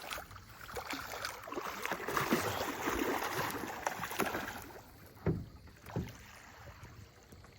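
Water splashing at the side of a boat, swelling and fading over a few seconds, then two sharp knocks against the boat.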